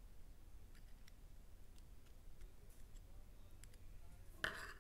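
Small parts being handled: a few faint scattered clicks, then a short louder rustle about four and a half seconds in.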